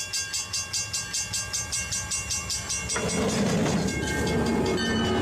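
Train running on the rails with a rhythmic wheel clatter, about four beats a second. About three seconds in, this gives way suddenly to a louder, steady rushing noise.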